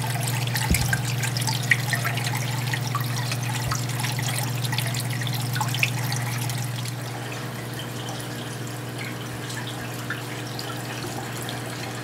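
Water trickling and splashing in a small stream running down through a planted terrarium from a glass jar-type outlet fed by a submersible pump, with many small drips and a steady low hum underneath. The trickling drops to a softer, quieter flow about seven seconds in.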